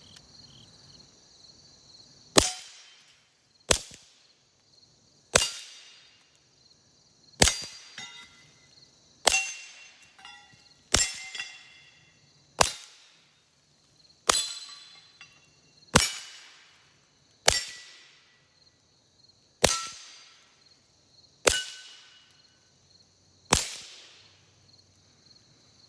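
Thirteen shots from an FN 502 .22 pistol, evenly paced one every one and a half to two seconds, each followed by the brief ring of a steel knockdown target being hit. Crickets chirp steadily throughout.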